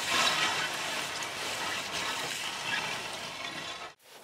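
Many glass plates being rubbed against one another with abrasive during fine grinding: a steady, gritty scraping hiss that cuts off suddenly near the end.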